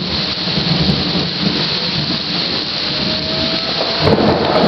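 Heavy rain pouring down in a thunderstorm, a steady loud rush of noise.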